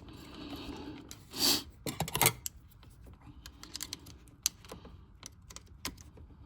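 Small sharp plastic clicks and handling of a wiring-harness connector as its back cover is pried and unclipped by hand, with a brief louder scrape about a second and a half in and a cluster of clicks just after.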